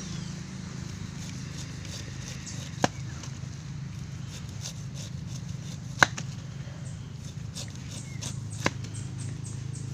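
Large kitchen knife slicing the rind off a whole pineapple, with three sharp knocks as the blade comes down on the wooden block under the fruit, the loudest about six seconds in. A steady low hum underlies it.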